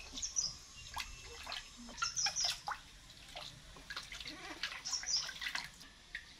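Water splashing and trickling in a plastic basin as hands scoop and pour it over a baby monkey being bathed, with small irregular splashes. Short high chirps come three times, near the start, about two seconds in and about five seconds in.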